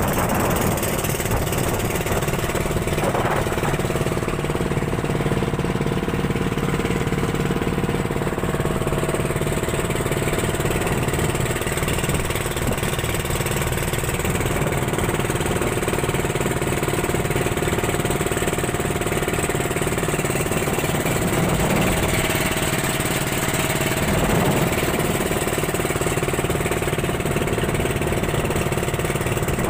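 Engine of a small wooden fishing boat (bangka) running steadily at speed, over a steady rushing hiss of water and wind.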